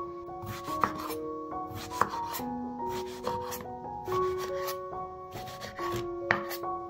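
Chef's knife cutting eggplant into cubes on a wooden cutting board: several slicing cuts, with three sharp knocks of the blade on the board. Background music with sustained notes plays throughout.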